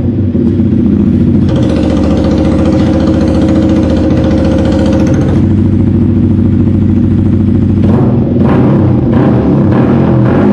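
Yamaha R15 V3's single-cylinder engine running through an aftermarket slip-on exhaust muffler, a steady engine note. The tone changes a couple of times, and several short surges near the end sound like throttle blips.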